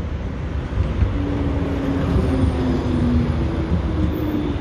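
Articulated electric tram pulling alongside the platform: a low rumble of wheels on rail with a whine from the electric drive that shifts in pitch in short steps from about a second in.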